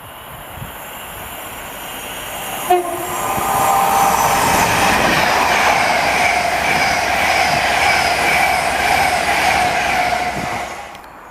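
A train passing along the rails, growing louder over the first few seconds into a loud steady rush with ringing, squeal-like tones, then cutting off sharply near the end. A short horn-like toot sounds about three seconds in.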